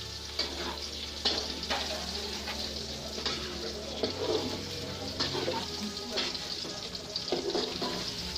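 Food frying in hot oil in a pan, sizzling with irregular crackles and pops, and some stirring.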